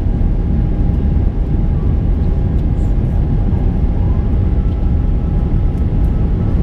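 Steady cabin noise of an Airbus A350-900 climbing after takeoff: the deep rumble of its Rolls-Royce Trent XWB turbofans and rushing air, heard from inside the cabin. A faint steady whine runs through it, and about four seconds in a second faint whine rises slightly in pitch and then holds.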